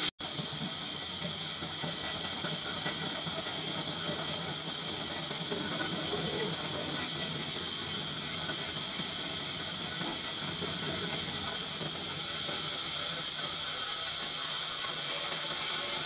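Horizontal band sawmill's steel band blade cutting lengthwise through a large log, a steady high hiss. The sound drops out for a split second right at the start.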